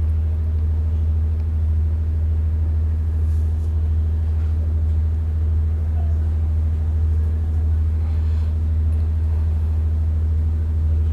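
Steady low hum, with faint soft stirring of a steel ladle in thick simmering dal in a metal pan.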